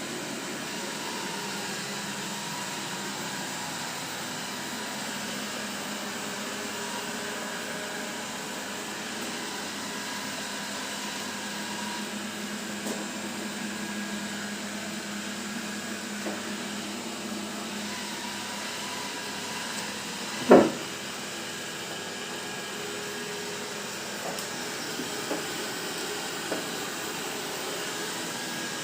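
Robot vacuum cleaner running with a steady whir. A single loud knock comes about two-thirds of the way through, followed by a few light taps.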